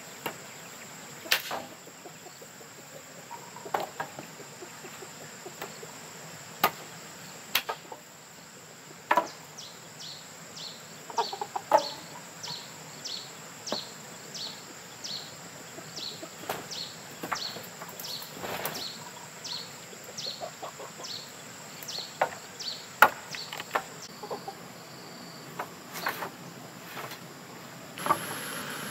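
Dry branches knocking against each other as firewood is handled, in sharp irregular knocks, with a chicken clucking. A steady high insect drone runs underneath, and a run of short high chirps, about two a second, comes in the middle.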